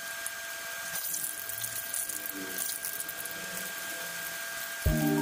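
Chicken frying in hot oil in a pan: a steady sizzle with scattered crackles, over a faint steady high whine. Music starts near the end.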